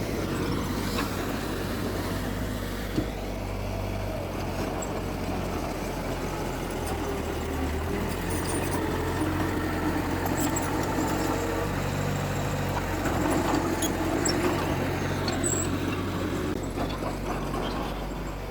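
Heavy earthmoving machinery engines running steadily, their pitch shifting a little as they work, with one sharp knock about three seconds in.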